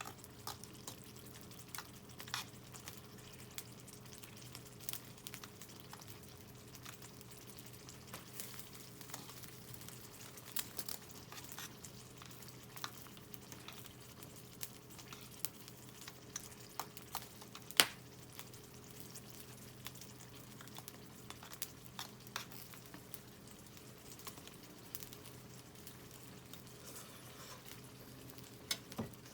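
Softwood campfire crackling, with irregular small pops and one sharp loud crack about 18 seconds in, over a faint steady hum.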